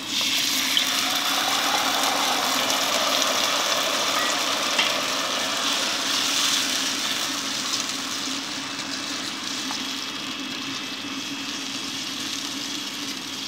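Sweet and sour sauce hitting a hot pot of fried rice and vegetables: a loud sizzle that sets in at once and settles to a slightly quieter steady sizzle and bubbling after about six seconds, over a steady low hum.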